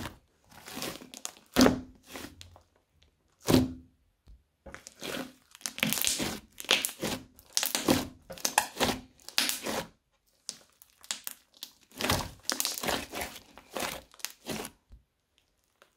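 Crunchy slime being squeezed and poked by hand, giving irregular bursts of crackles and pops, in clusters with short pauses between.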